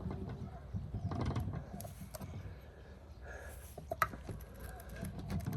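Metal hive tool scraping and prying at a wooden native bee hive box sealed with propolis, with irregular creaks and clicks and one sharp click about four seconds in.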